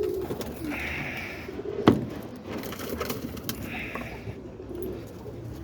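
Roller pigeons cooing softly in the loft, with a single sharp knock about two seconds in.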